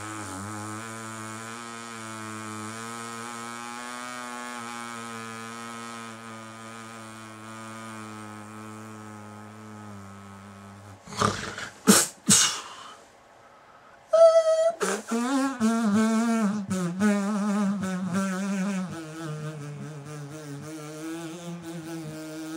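A person's low, sustained moaning tone held steady for about ten seconds. It breaks into a few loud gasping breaths and a short pause, then a sudden loud wavering cry settles into another long, low held tone.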